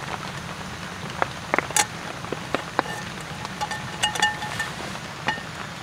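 A steel pan being handled over a small gas camping stove: scattered light clicks and metal clinks, with a brief ringing tone from about three to four and a half seconds in. Steady rain patter in the background.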